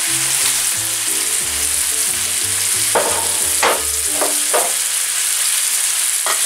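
Brussels sprouts frying in olive oil with pancetta and shallot in a wide pan, a steady sizzle. There are a few sharp clicks between about three and four and a half seconds in.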